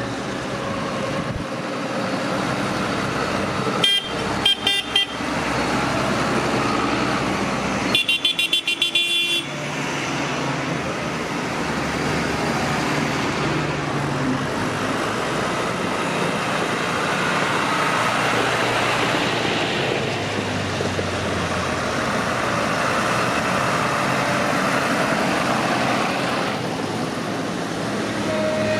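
Tractor engines running as tractors drive past. Two bursts of quick repeated horn toots, about four seconds in and again about eight seconds in.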